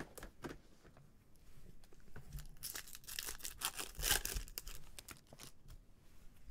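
Foil trading card pack wrapper being torn open and crinkled by gloved hands, a crisp crackling tear starting about two and a half seconds in and loudest about four seconds in.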